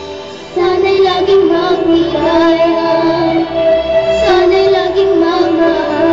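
A young girl singing into a microphone over accompanying music; her voice comes in loudly about half a second in and carries on in long, held phrases.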